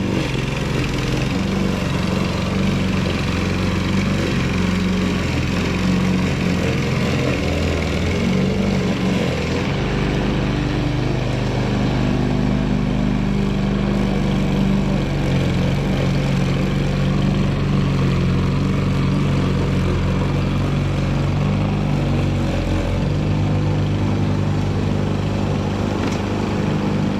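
Gas lawn mower engine running steadily under load, its engine note stepping down and back up a few times. The owner says its blade has dropped too low, so it gouges the ground and stalls in places.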